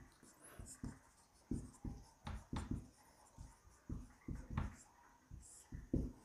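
Marker pen writing on a whiteboard: quiet, short, irregular strokes and taps as letters are written.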